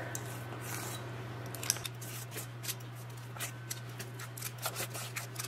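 Cookie scoop scraping thick muffin batter out of a metal mixing bowl, its squeeze lever clicking as each scoop is released, repeated several times. A low steady hum runs underneath.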